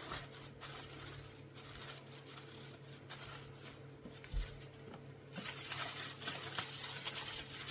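Aluminium foil and kitchen paper towel crinkling around a hot fried green plantain as it is handled for pressing: faint scattered clicks, then, a little over five seconds in, a louder dense crackling rustle. A low steady hum sits under it throughout.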